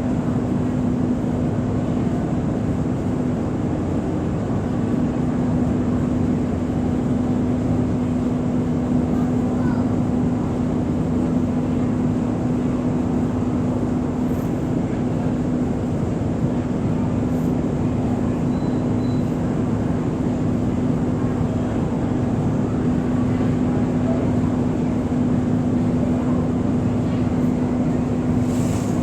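Ferry engine running at a steady pace, an even low drone with a strong steady hum.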